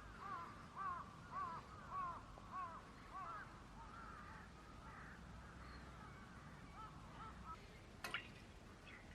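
Birds calling in a quick series of short rising-and-falling calls, about two a second, fading to fainter calls after a few seconds. A single sharp knock sounds near the end.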